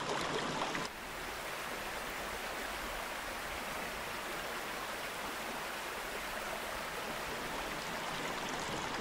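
Small brook trout stream running, a steady even rush of water that drops slightly in level about a second in.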